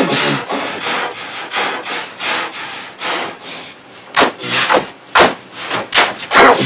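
Harsh, scratchy noise bursts in an uneven rhythm, a few a second, from effect-processed remix audio. Stronger bursts come in the second half.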